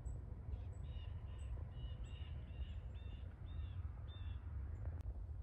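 A bird calling a run of about eight harsh, evenly spaced notes, roughly two a second, that stop near the end, over a steady low rumble. A single sharp click comes just before the end.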